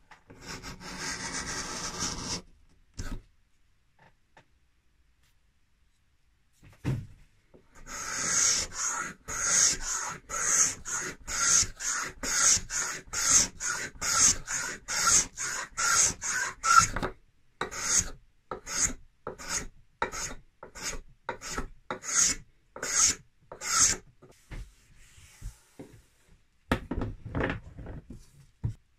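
Small boxwood scraping plane, its steel scraper blade scraping the surface of a hardwood board. One long stroke comes first, then a pause of several seconds, then a long run of short, quick back-and-forth strokes at about two a second.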